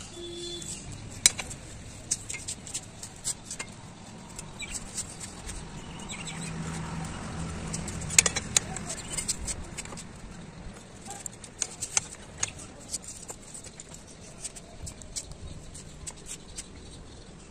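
Scattered sharp metal clicks and clinks of a flat steel bar being worked around the pipe dies and bearing roller of a homemade bar bender, the loudest about a second in and again around eight seconds in.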